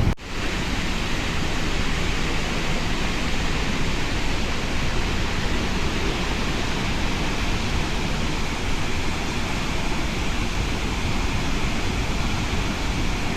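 Steady rush of heavy water from a dam discharge, the flow swollen by typhoon rain.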